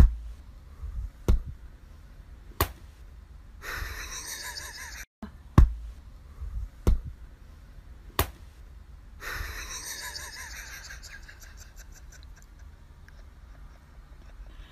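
Sharp knocks, three about a second and a quarter apart, then after a brief break three more at the same pace, with stretches of faint hiss between them.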